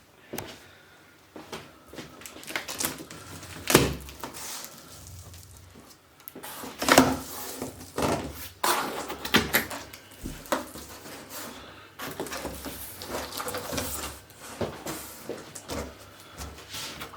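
A large cardboard shipping box being opened and its contents handled: irregular knocks and thumps with rustling in between, the sharpest knocks about four and seven seconds in.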